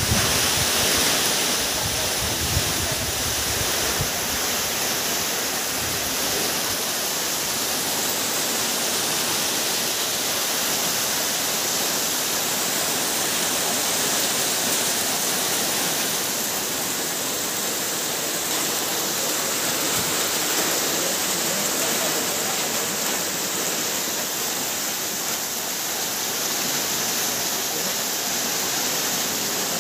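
Torrential typhoon rain pouring steadily on leaves and ground, a dense even hiss. In the first few seconds there is a low rumble of wind on the microphone.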